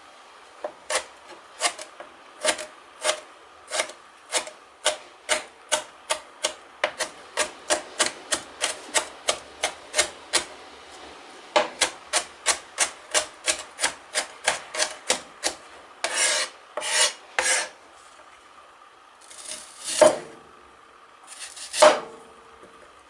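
Chef's knife dicing tomato on a plastic cutting board: a steady run of knife strikes, about two to three a second, then a few longer scrapes. Near the end, two heavier single cuts as the knife trims an onion.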